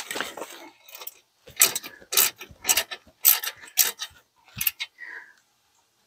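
Irregular metallic clicks and clanks from hand tools and brake parts as the front brake caliper is fitted to its bracket and its two 7 mm Allen retaining bolts are tightened.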